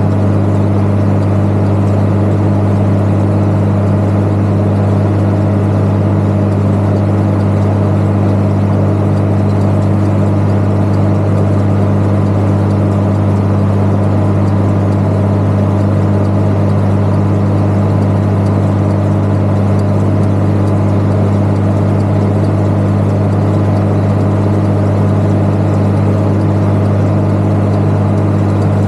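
Valtra 8400 tractor's six-cylinder diesel engine running steadily under load, driving a precision-chop forage harvester along a grass swath. It holds a constant, even drone throughout.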